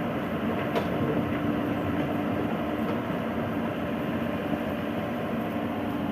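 Excavator's diesel engine running steadily, with a faint click about a second in.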